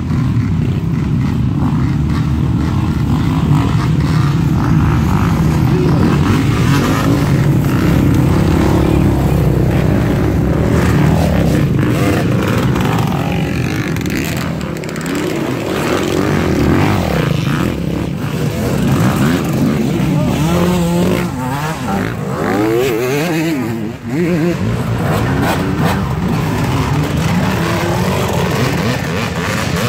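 Several off-road dirt bikes ride past one after another, their engines revving up and down over uneven muddy ground. The engine note rises and falls repeatedly through the middle of the stretch.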